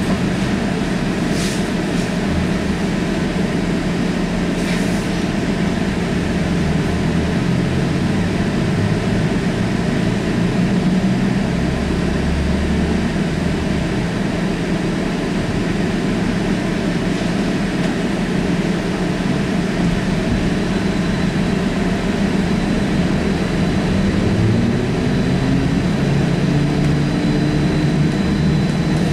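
Trolza-5275.03 "Optima" trolleybus riding, heard from inside the passenger cabin: a steady running rumble with road noise. About 24 seconds in, the traction motor's whine rises in pitch as the trolleybus picks up speed.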